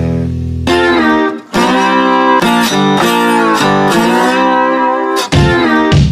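Background music: a guitar playing a melody of held, plucked notes.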